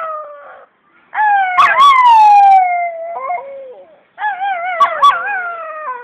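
Shih Tzu howling: a long howl that slides down in pitch, then a second, wavering howl that also falls, with a few short clicks mixed in.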